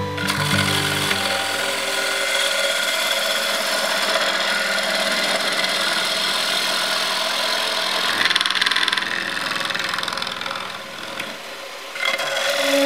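Wood lathe spinning a large bowl blank while a long-handled bowl gouge cuts the inside, a steady rushing, scraping cut with shavings flying off. The cut eases off a little near the end.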